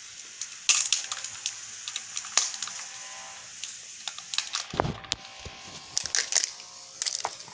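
Foil wrapping and paper crinkling and crackling, with scattered sharp clicks and snaps, as a Kinder Joy egg's plastic toy capsule is unwrapped and opened by hand. A dull bump sounds near five seconds in.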